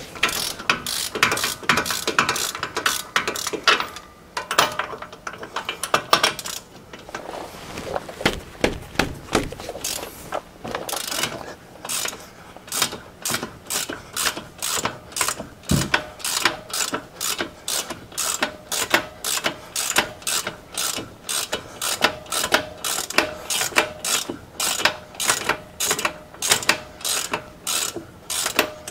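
Half-inch-drive ratchet with a 21 mm deep-well socket clicking as it backs off the nuts holding the front wheel unit bearing to the Dana 60 knuckle. The clicks come irregularly for the first several seconds, then settle into an even run of a few clicks a second.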